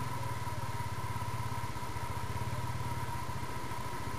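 An engine idling steadily, with a fast, even low throb and a thin steady tone above it.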